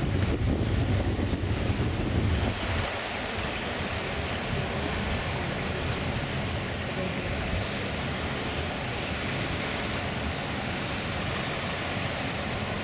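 Steady rush of rough sea and churned water, with wind buffeting the microphone, heaviest for the first two seconds or so.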